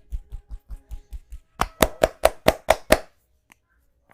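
Percussive hand strikes of a barber's massage, beaten in quick rhythm at about four or five a second: a run of soft, dull thumps, then about seven louder, sharper slaps that stop about three seconds in.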